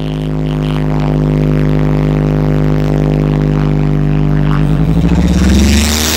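Loud music from a street DJ sound system's speaker stack: one long held synth note over steady deep bass, turning about five seconds in into a fast-throbbing bass that rises in pitch.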